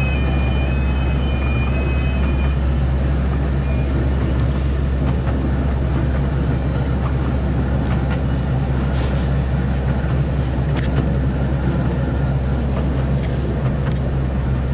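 Small ride-on park train running steadily, heard from on board: a constant low drone of its motor with running noise and a few faint clicks from the track.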